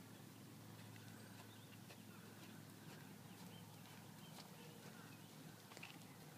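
Faint hoofbeats of a horse walking on soft arena dirt, over a steady low hum.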